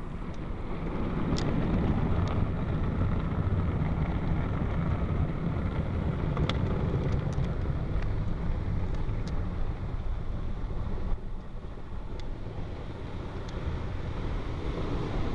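Ryko SoftGloss Maxx car wash brushes spinning and washing over the car with water: a steady rumbling wash noise that swells about a second in and eases briefly near eleven seconds.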